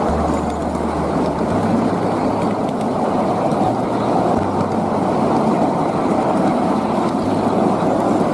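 Steady rumble of a 7¼ in gauge miniature railway train running along the track, heard from on board.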